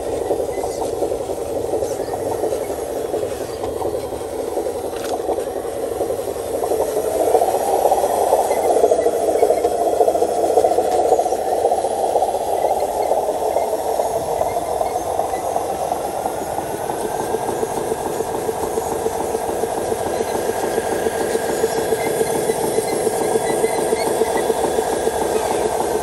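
Radio-controlled model truck's motor and drivetrain running steadily as it crawls over rough ground. The sound swells about eight seconds in, and a thin whine rises around the middle, then holds.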